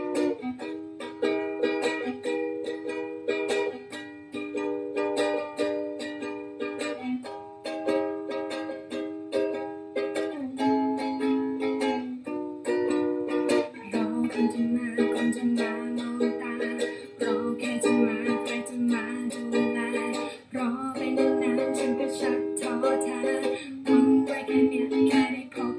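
Ukulele strummed in a down-down-up-up-down-up pattern through the song's five-chord set, E, G♯m, C♯m, A and B, with the chord changing every few seconds.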